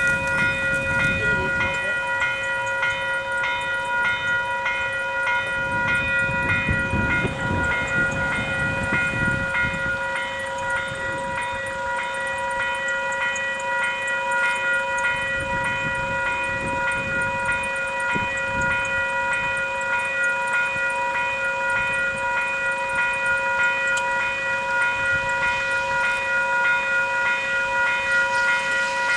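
Level crossing warning bell ringing continuously in a regular repeating pattern, with a low train rumble swelling and fading beneath it.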